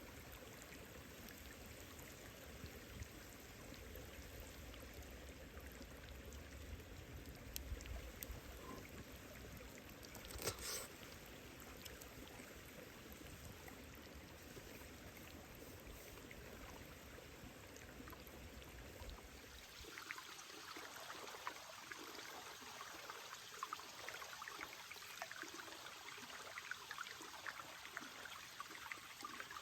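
Steady rain falling. About two-thirds of the way through, the sound changes abruptly to a closer, denser patter of individual drops.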